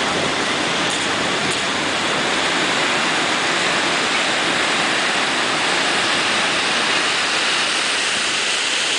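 Heavy ocean surf breaking, a steady loud roar of whitewater with no let-up.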